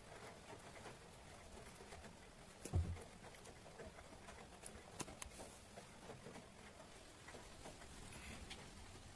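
Quiet room tone with a few faint clicks and ticks, a single low thump about three seconds in and a sharp click around five seconds in.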